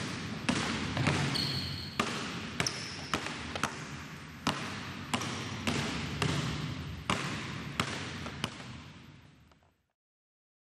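Two basketballs dribbled together on a hardwood gym floor, bouncing every half to three-quarters of a second with the room's echo behind them, and two brief high squeaks in the first three seconds. The sound fades out about nine and a half seconds in and falls silent.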